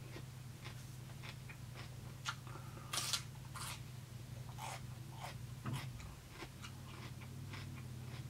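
Biting into raw cucumber: one loud crunch about three seconds in and a few smaller crunches after it, then wet chewing clicks, over a low steady hum.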